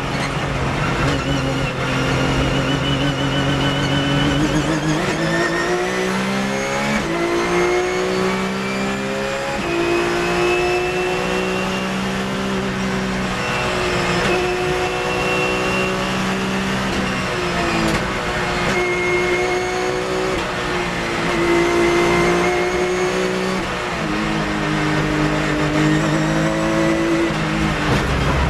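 Porsche 911 GT3 Cup race car's flat-six engine heard from inside the cockpit under hard acceleration. Its pitch climbs in steps through the upshifts and falls back at each gear change and under braking.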